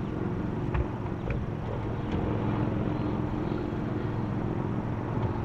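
A boat motor running steadily with an even hum, with a few faint clicks near the start.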